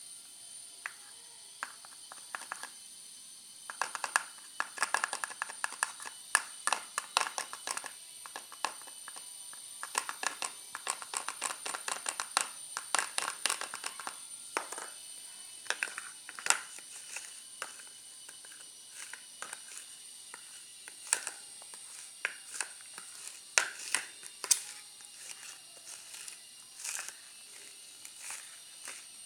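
Homemade slime being kneaded and pulled by hand, giving irregular clusters of sharp sticky clicks and crackles. They are busiest from about four to fifteen seconds in and come again near the end.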